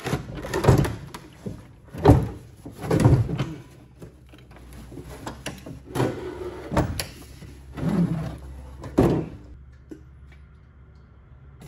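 Plastic fuel tank being worked loose and lifted out of a snowmobile's bay: a string of about seven knocks, thumps and scrapes of plastic against metal, then quieter near the end as it is set down on the floor.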